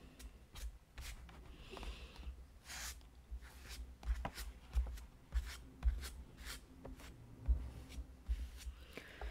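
Metal palette knife dabbing and spreading texture paste on a thin Bible page and picking it up off a plate: faint scattered scrapes and light taps.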